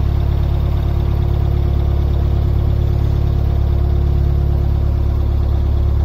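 Narrowboat's diesel engine running steadily at a low, even pitch as the boat cruises slowly along the river.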